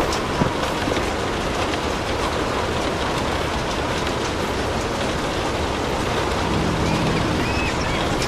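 Steady rain, an even hiss, with a few sharp ticks in the first second.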